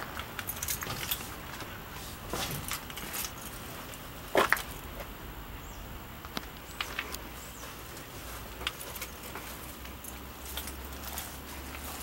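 Light clicks and knocks from a handheld camera being carried while the operator walks on grass, with one louder double knock about four and a half seconds in.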